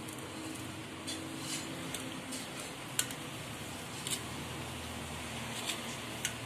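Metal spoon scraping and pushing grated cassava off a wire-mesh strainer into a steel mixing bowl, with a few sharp metal clicks and taps, over a steady low hum.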